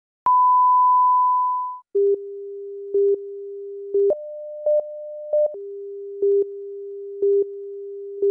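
Broadcast test tones. A steady reference tone plays over colour bars for about a second and a half. It gives way to the countdown leader's lower steady tone, which carries a louder beep about once a second and steps up in pitch for about a second and a half in the middle.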